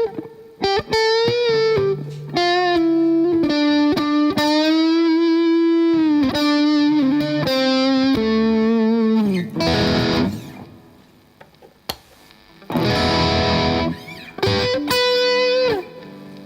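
Electric guitar played through an overdrive pedal: sustained single-note lead lines with string bends and vibrato, then a couple of short strummed chords in the second half.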